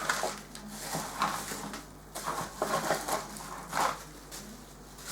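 Small parts and packaging being handled and sorted: irregular rustling with a few sharp clicks and knocks.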